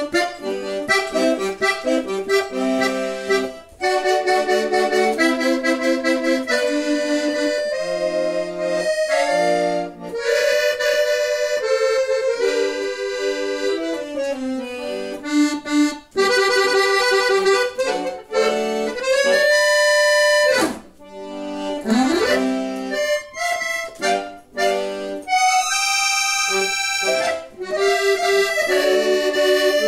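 Accordion playing a melody over chords, with a quick upward run a little past two-thirds of the way through.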